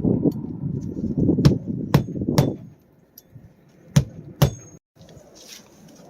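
Hammer driving roofing nails into a roof shingle: five sharp strikes, three quick ones about a second and a half in and two more around four seconds, with a low rumble under the first half.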